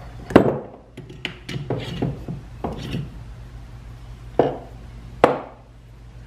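Metal knocks and clinks as a cast-iron Pickering governor and a hand reamer in a T-handle tap wrench are handled and the reamer is set into the governor's bore, with a few sharp strikes, the loudest about half a second in and another near the end.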